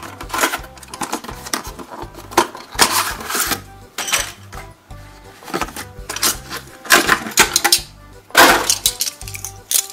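Stiff clear plastic blister packaging crinkling and crackling in irregular bursts as a toy truck is pulled out of it, over soft background music.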